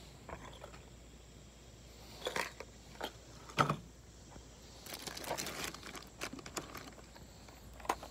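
Fishing-lure packaging crinkling and rustling as it is handled, in several short bursts with a longer stretch about five seconds in.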